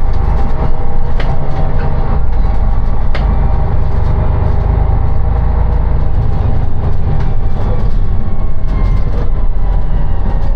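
Inside a moving city bus: a heavy, steady low rumble from the engine and road, with a faint whine held over it and occasional sharp clicks and rattles from the bus's fittings.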